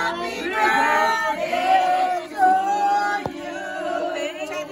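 Several voices, men's and women's, singing together in long held notes that shift in pitch from phrase to phrase.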